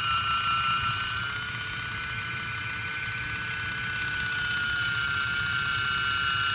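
The small battery-powered motor of a Kitchen Mama electric can opener running steadily, a high whine that wavers slightly in pitch.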